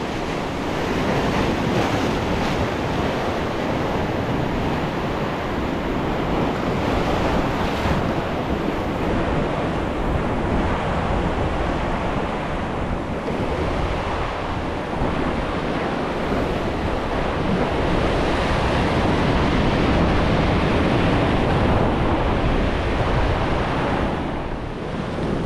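Sea surf breaking and washing over a rocky shoreline, a steady rush that swells and eases with the waves, with wind buffeting the microphone.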